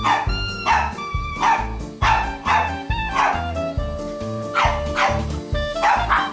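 Small dog barking repeatedly and excitedly, a bark about every half second, at a small RC helicopter flying close by. Background music with a steady beat plays under the barking.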